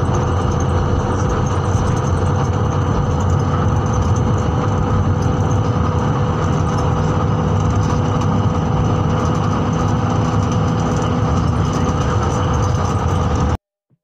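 Steady rumble and travel noise inside a moving vehicle, with a faint steady whine above it. It cuts off suddenly near the end.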